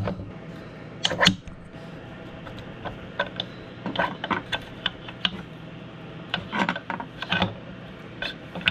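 Hand tools and metal parts of an Audi 01E six-speed transmission clicking and tapping against each other during disassembly: a string of short, irregular clicks, with a steady low hum underneath.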